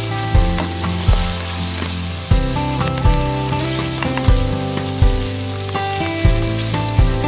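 Chicken drumsticks sizzling as they brown in oil in a nonstick frying pan, being turned with tongs. Background music with a steady beat plays alongside.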